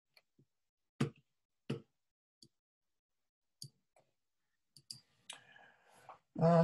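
A computer mouse clicking: several sharp single clicks spaced unevenly, about half a second to a second apart.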